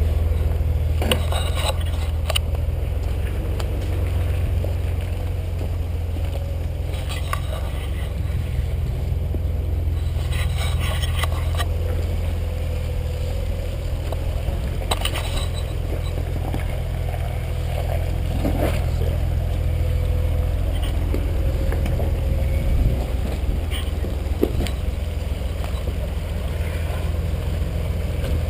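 Jeep Wrangler LJ's 4.0-litre straight-six running low and steady while crawling over a rock obstacle, with scattered short knocks and clicks from the rig working over the rock.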